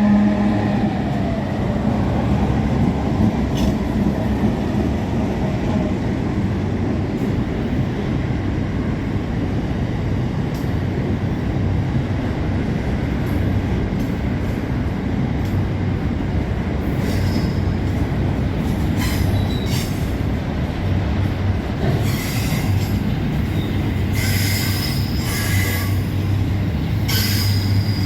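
A freight train's wagons roll past with a steady rumble and rattle of wheels on rail, after the last of a locomotive horn blast dies away with a falling pitch in the first second. High wheel squeal comes and goes over the second half and is strongest near the end.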